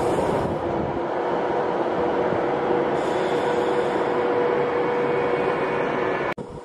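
Class 390 Pendolino electric train rolling slowly alongside the platform and slowing almost to a stop, with a steady hum. The sound cuts off suddenly near the end.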